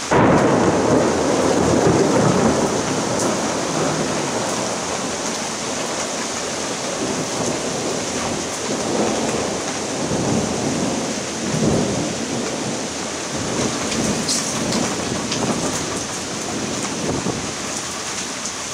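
A thunderclap breaks out suddenly right at the start and rolls on as rumbling thunder, swelling again a few times over several seconds. Under it runs the steady hiss of torrential rain.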